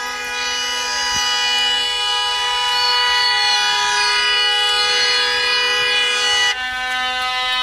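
Car horns held down continuously in celebration: a loud, steady two-tone blare that breaks off briefly about six and a half seconds in. A lower steady tone sounds on and off alongside it.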